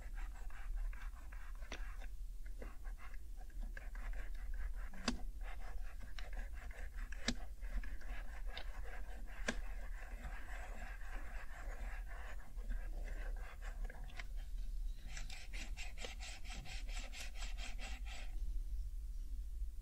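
An alcohol pad rubbed over the plastic keycaps of an HHKB Professional 2 keyboard, with a few sharp clicks along the way. Near the end comes about three seconds of quick, even back-and-forth scrubbing, roughly six strokes a second.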